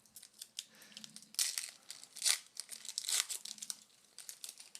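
Foil wrapper of a Chronicles football trading-card pack being torn open and crinkled by hand, in irregular rustling bursts with a few louder crackles.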